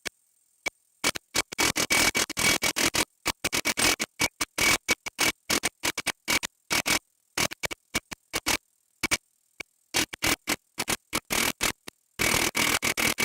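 Milwaukee 1-inch cordless impact wrench hammering on a large truck nut without breaking it loose. The sound comes in loud, irregular bursts with sharp cut-offs to dead silence between them.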